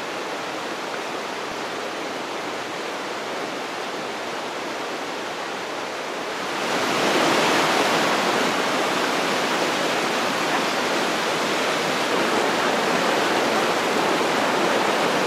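Fast mountain river rushing over boulders in whitewater rapids, a steady rushing of water that grows louder and brighter about six and a half seconds in.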